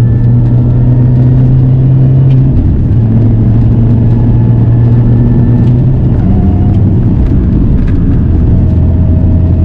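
Supercharged 1.6-litre four-cylinder engine of an R53 Mini Cooper S running as the car is driven, a steady low drone whose pitch drops in steps, about a quarter of the way in, again past halfway and near the end.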